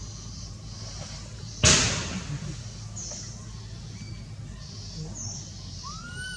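A single sudden loud thump about a second and a half in, over steady forest background hiss, followed by a few faint short chirps and a brief rising call near the end.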